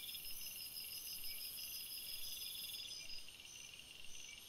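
A steady chorus of chirping crickets, with short high chirps repeating about once a second over a continuous trill.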